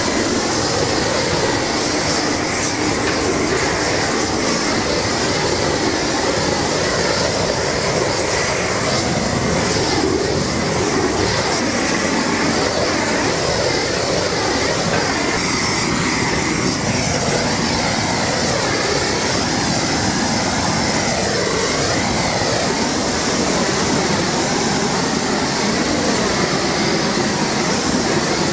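Handheld LPG gas torch burning steadily, fed from a gas cylinder and played over the skin of whole pigs on spits: a continuous, even rushing hiss.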